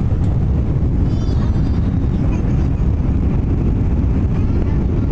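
Steady low rumble of engine and airflow noise inside an Airbus A321's passenger cabin during the approach to landing.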